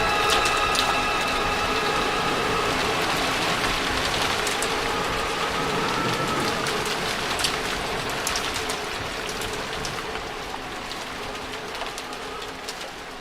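Rain falling, an even hiss with scattered drop ticks, fading out slowly; a held chord dies away under it in the first few seconds.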